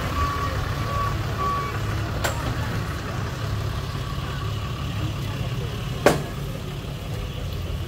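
Tow truck backing up: its reversing beeper sounds in short repeated beeps for the first couple of seconds over the steady running of its engine. There is a sharp knock about two seconds in and a louder single clank about six seconds in as the wheel-lift is worked under the box truck's front wheels.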